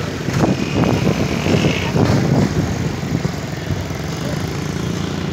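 A small engine running steadily close by, with a few short knocks over it in the first two seconds.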